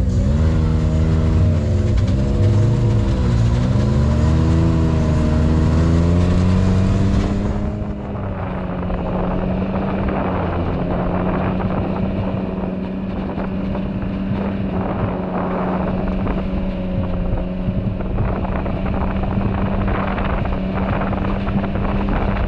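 Off-road vehicle engine pulling away, its pitch rising and falling as the throttle changes. About seven seconds in the sound changes abruptly to the engine running at a steady speed, with frequent knocks and rattles over it.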